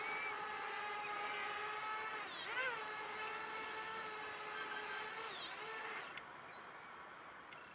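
Parrot Bebop 2 quadcopter's propellers whining in a low hover, the pitch dipping and rising twice as it comes down, then dying away about six seconds in as it lands and the motors stop. Short high chirps from small birds sound over it.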